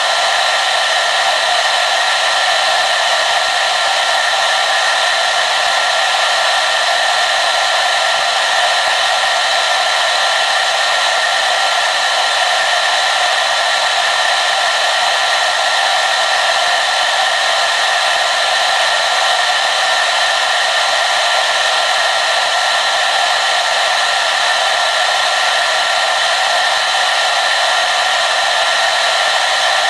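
Hair dryer running steadily on a constant setting: an even rush of blown air with a steady whine of the motor and fan running through it.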